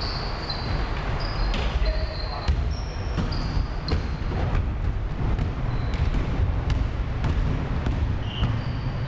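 Basketball bouncing repeatedly on a hardwood gym floor, mixed with short high-pitched squeaks of sneakers as players run.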